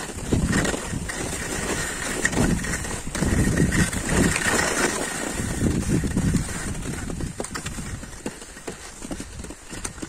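Skis and poles on snow: a rhythmic series of crunching, scraping strides as the skier moves along a snowy trail, quieter over the last few seconds.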